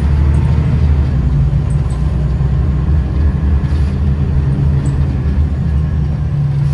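Scania L94UB bus under way, heard from inside the passenger saloon: its five-cylinder diesel engine and ZF Ecomat automatic gearbox running as a steady low drone while the bus drives along.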